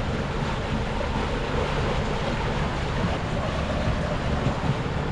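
Sea water rushing in the wake of a sailboat under way, with wind buffeting the microphone. A steady, even noise.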